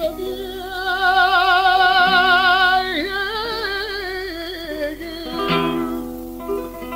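Male flamenco singer's quejío opening a malagueña: a long held "ay" with wide vibrato, then a winding melismatic line. Plucked flamenco guitar notes come in near the end.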